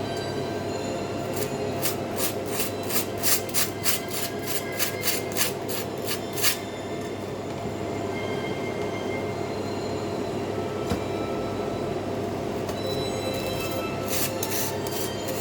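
Butter knife spreading butter on toast: quick rasping scrapes, about three a second, in a run of several seconds near the start and again near the end, over a steady hum.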